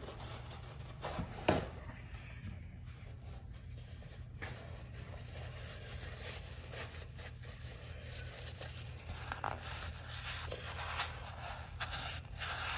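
Gloved hands rustling a cleaning towel and rubbing it around the rim of a lawn mower wheel, with scattered small scrapes and a sharp click about a second and a half in, over a steady low hum.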